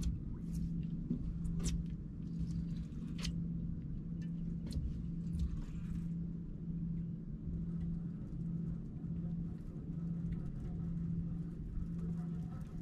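A fishing reel being cranked to bring in a hooked fish, a hum that pulses about one and a half times a second with each turn of the handle, over a low rumble. A few sharp clicks and knocks of rod and reel handling come in the first few seconds.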